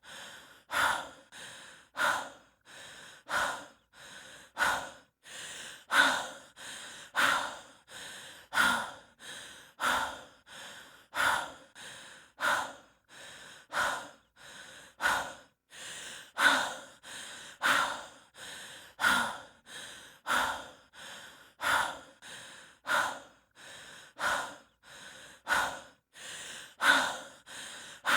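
A person breathing heavily and fast in an even rhythm, louder and softer breaths taking turns about two-thirds of a second apart.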